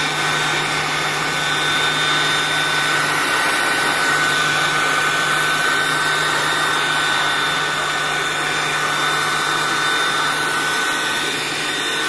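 Polymake 400 W electric hand blower running at full speed: a steady high motor whine over the rush of air. It begins to wind down at the very end.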